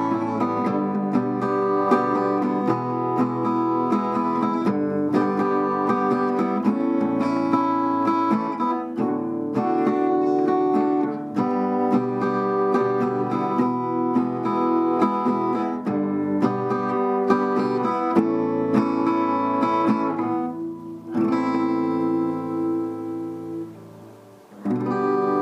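Background music: acoustic guitar playing plucked and strummed chords, fading away about 21 seconds in and coming back just before the end.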